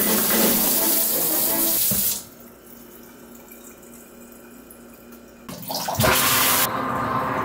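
Water running hard from a tap, a loud steady rush that cuts off about two seconds in and comes back about five and a half seconds in.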